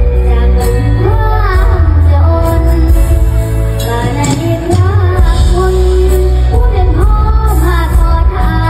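A girl singing a Thai song in a high voice with gliding, ornamented phrases, over backing music with a heavy bass line.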